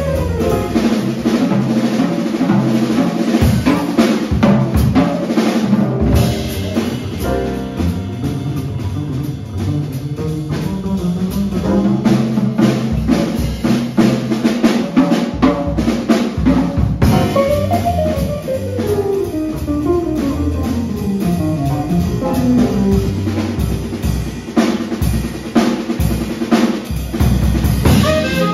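Jazz combo playing live, the drum kit to the fore with snare and bass-drum hits over a continuous bass line and other instruments underneath. A long run steps downward in pitch a little past the middle.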